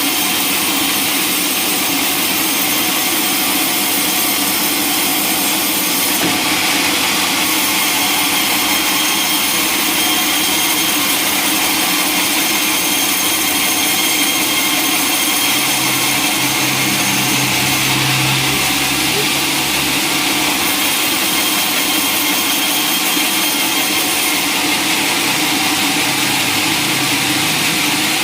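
Sawmill saw cutting lengthwise through a log: a steady, loud, hissing saw noise, with a low hum joining in about halfway through.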